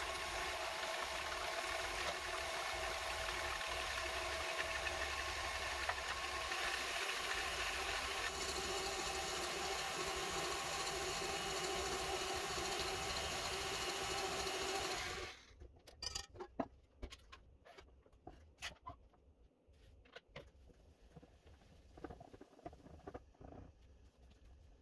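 Electric stand mixer running steadily at high speed, whipping eggs in its steel bowl. It cuts off suddenly about 15 seconds in, leaving only faint clicks and scrapes of a spatula against the metal bowl.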